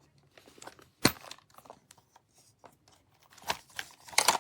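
Handling noises from objects in and around a portable lock box: scattered clicks and rustling, a sharp knock about a second in, and a quick run of clicks and rustles near the end.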